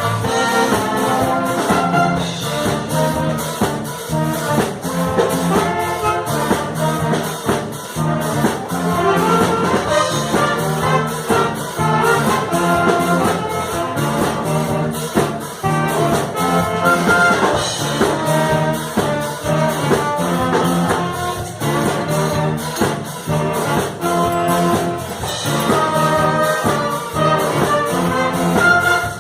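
Live band with a brass section playing upbeat music over a steady drum beat.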